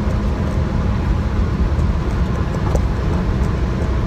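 Honda City with aftermarket cams and an AZC exhaust running flat out near 7,000 rpm at about 210 km/h. Heard from inside the cabin as a steady engine note under heavy road and wind noise.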